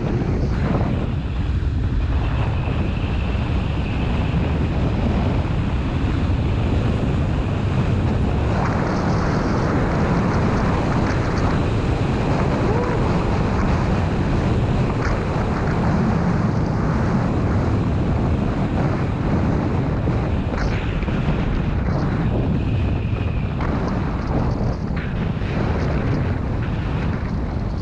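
Wind buffeting an action camera's microphone during a fast downhill ski run, a steady loud rumble, with the skis running over groomed snow underneath.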